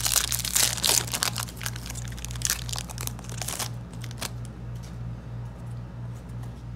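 Foil wrapper of a Yu-Gi-Oh! Savage Strike booster pack crinkling and tearing as it is ripped open by hand, dense for the first three and a half seconds, then lighter rustles as the cards are slid out of the wrapper. A steady low hum runs underneath.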